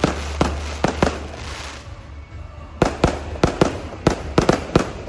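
Fireworks display: a string of sharp bangs with a hissing, crackling tail, a lull of about a second and a half, then a quicker run of bangs near the end.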